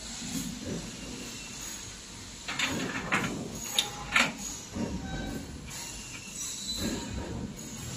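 Sheet-steel panels of a parcel box being fitted together by hand: metal scraping and rattling, with a few sharp metallic clanks near the middle.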